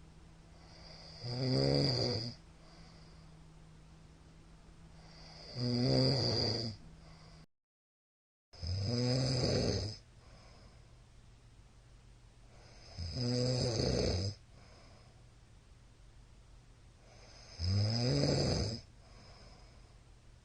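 A middle-aged man snoring loudly in his sleep: five rasping snores, each about a second long, roughly every four seconds. A faint steady hum fills the gaps between them, and there is a brief dropout to dead silence about a third of the way in.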